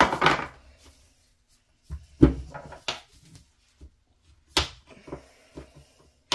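A series of knocks and plastic rustles from a plastic tub and a block of melt-and-pour soap base being handled and set down on a countertop, the loudest at the start and about two seconds in.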